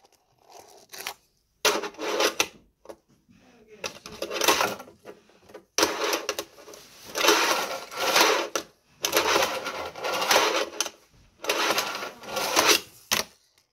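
Fingerboard wheels rolling and rattling on a small halfpipe ramp: a string of rolling runs, each about a second long with brief pauses between, the longest run in the middle.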